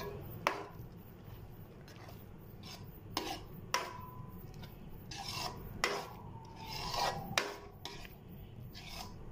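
Metal spoon scraping around a metal pan as it stirs cream into a thick sauce, with about five sharp clinks of the spoon against the pan and a brief ringing of the metal.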